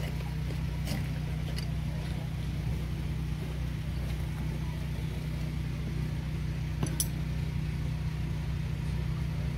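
Steady low hum of an idling engine, with a few light clicks, the sharpest about seven seconds in.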